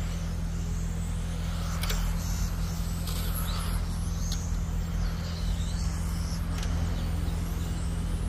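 Radio-controlled model race cars running on a track, their motors whining in short sweeps as they pass, with a few sharp clicks over a steady low hum.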